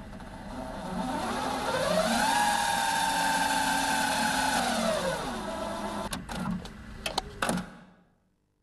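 Sound effect for a TV channel logo animation: an engine-like whine that rises in pitch, holds steady, then falls away, followed by a few sharp clicks.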